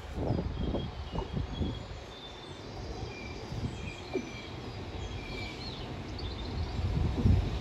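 Small birds chirping, many short repeated calls, over an uneven low rumble of wind gusting on the microphone that swells in the first second or so and again near the end.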